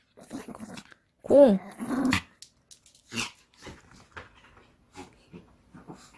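Pomeranian growling while playing with a toy, with one short bark about a second in. Scattered knocks and scuffles of its paws and the toy on the floor.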